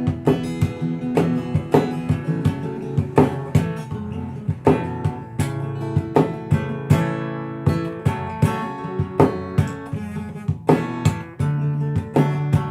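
Acoustic guitar played fingerstyle: a plucked melody over bass notes, with sharp accents about twice a second.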